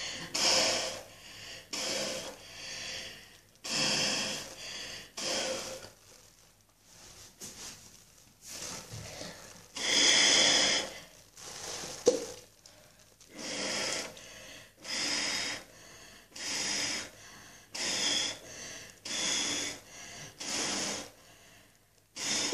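Hard, repeated blowing through a homemade foam maker, a cut-off plastic bottle with a shampoo-soaked sock over its end, pushing air out through the wet soapy fabric. The puffs come in breathy bursts about one a second, with a pause of a few seconds in the middle followed by one longer blow.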